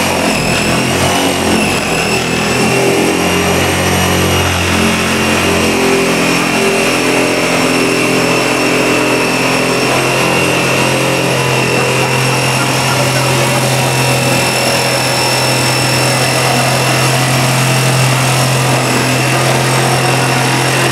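Electric motor of a home-built, battery-powered drilling and sawing machine running steadily, a high whine over a low hum that shifts up a little about five seconds in.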